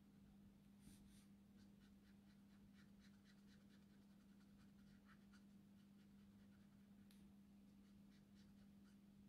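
Faint scratching of a Copic marker nib on paper in many short, quick strokes, over a steady low hum.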